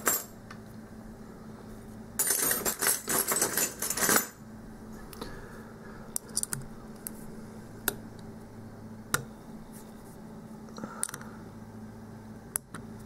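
Small metal lock-picking tools clinking and clattering as they are handled and sorted. A dense run of clatter starts about two seconds in and lasts two seconds, then single light clicks follow now and then.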